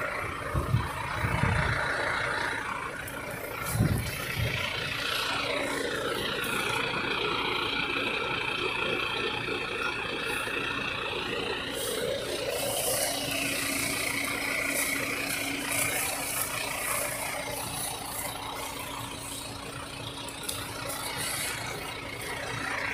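A vehicle engine idling with a steady low hum, with a couple of dull thumps about a second in and again about four seconds in.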